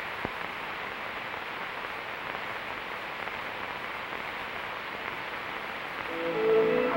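Steady hiss of an old film soundtrack between pieces of music, with one faint click just after the start. Music with held notes fades in near the end.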